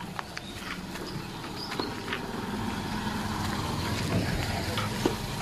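A vehicle engine running steadily, getting gradually louder.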